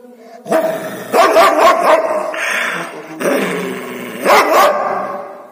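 Young Doberman barking loudly: about five drawn-out, harsh barks with short breaks between them.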